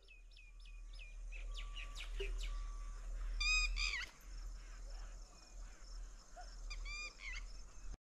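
Wild birds calling over open farmland. A quick run of about six falling whistled notes in the first second, then scattered chirps, with two short chattering phrases about midway and near the end.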